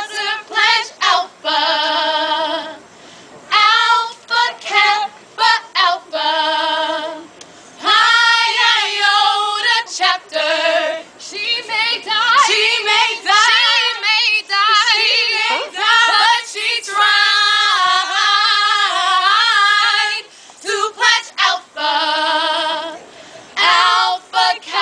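Four women singing together without accompaniment, long held notes with vibrato in phrases broken by short pauses.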